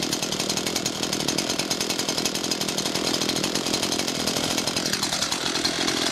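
ECHO CS-500P chainsaw's 50 cc two-stroke engine running steadily just after starting, with a brief drop in its note about five seconds in.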